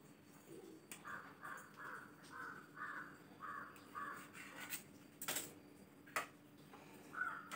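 A crow cawing about eight times in quick succession, faint, then stopping; a little later come two sharp clinks, like metal on a steel plate, the loudest sounds here.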